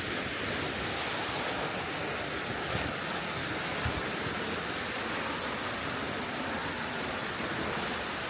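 Steady rushing of a nearby waterfall, an even noise with no letup, with a few faint knocks about three to four seconds in.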